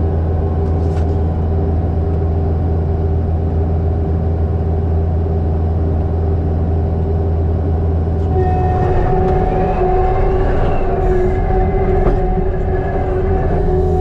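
Kubota SVL95-2s compact track loader's diesel engine running steadily from inside the cab as the machine tracks over dirt. About eight seconds in, a higher hydraulic whine joins as the loader works its bucket, rising and then falling.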